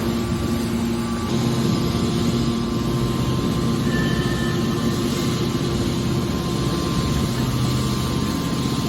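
Hydraulic scrap metal baler running, its power unit giving a steady machine drone with a low hum.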